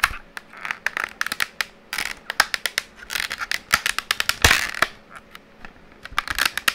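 Clear plastic clamshell packaging of an NVMe SSD being flexed and pried open by hand: an irregular run of sharp crackles and clicks, with the loudest crunch about four and a half seconds in.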